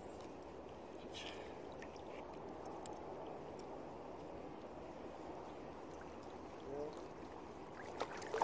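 Steady low rushing of estuary water around a wading angler. Near the end come sharp splashes as a landed sea bass thrashes at the surface.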